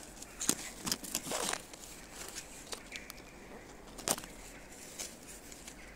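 Fig tree leaves rustling as a hand pushes in among them, with short clicks and crackles in the first second and a half and one sharper click about four seconds in.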